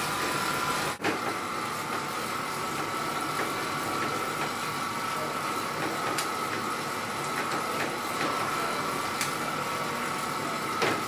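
CycleOps PowerBeam electronic trainer whining steadily as the road bike's rear tyre spins on its roller under pedalling load, a constant tone over an even rushing hiss. The sound briefly drops out about a second in.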